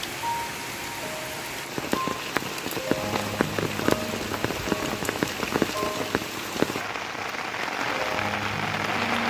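Steady rain, with many separate drop hits striking a surface through the middle few seconds, over soft background music.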